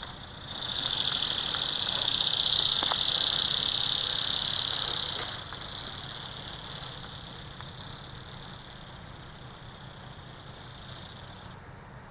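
The E-Bird RC ornithopter's small electric motor and flapping gearbox whining in flight, a steady high whine that swells in about half a second, holds for several seconds, then drops and fades away.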